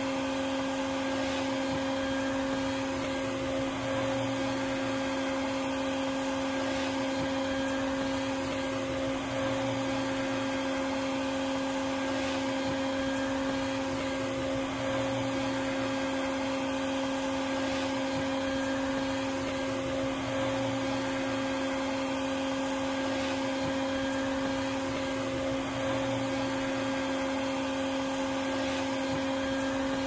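Vacuum cleaner running steadily: a constant rush of air over an even motor hum, with a faint hitch repeating about every five and a half seconds.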